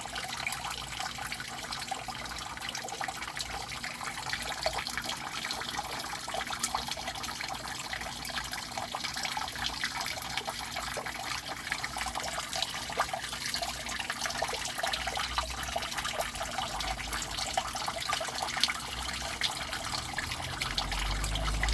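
Water falling into a drain: a steady rush of splashing water, full of small splashes and drips.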